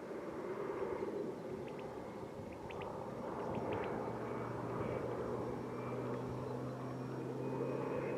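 Air Tractor AT-602 crop-spraying plane's Pratt & Whitney PT6A turboprop engine and propeller, growing gradually louder as it comes in. A steady hum sets in about halfway through, over a faint high whine.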